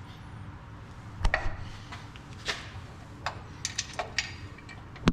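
Metal suspension parts knocking and clanking in a string of separate sharp hits as a part is worked by hand into line on a truck's front suspension, the loudest clank near the end.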